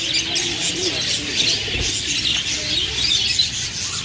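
Many small caged birds chirping and chattering continuously, with low cooing from pigeons underneath.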